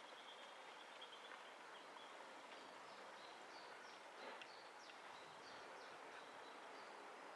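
Faint birdsong: short high chirps and quick falling whistles, busiest in the middle, over a steady hiss of outdoor background.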